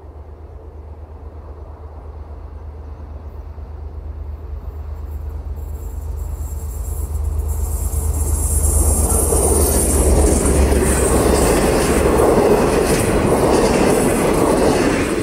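V/Line diesel locomotive approaching with its passenger carriages, a low engine drone growing steadily louder. From about halfway in, wheel-on-rail noise and the rush of passing carriages build up and take over as the train goes by close up.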